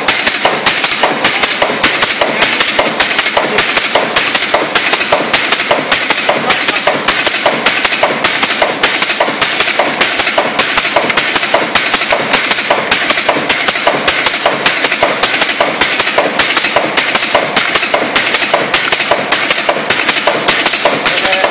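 24/6 office staple making machine running, with a steady clattering stroke about twice a second.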